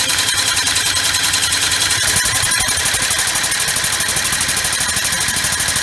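Homemade oval compressed-air engine running steadily at speed: a loud, fast, even train of hissing air pulses.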